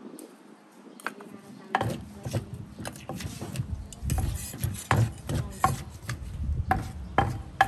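Kitchen utensils knocking and scraping against wood as a salad is prepared: irregular sharp knocks, one or two a second, starting about a second in, with scraping between them.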